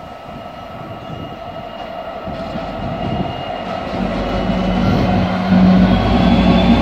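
Europorte Euro 4000 diesel-electric freight locomotive, with its EMD V16 two-stroke engine, hauling a train of hopper wagons. The sound grows steadily louder as it approaches and passes close. About two-thirds of the way in, the engine's steady low drone comes in, with a thin high whine over it.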